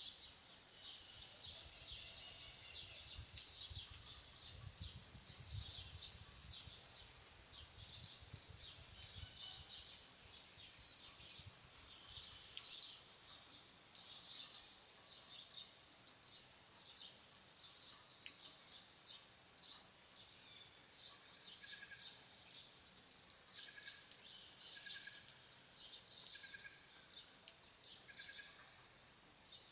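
Faint rural dawn ambience of many birds chirping. In the second half one bird repeats a short note about once a second. A low rumble underlies the first twelve seconds or so.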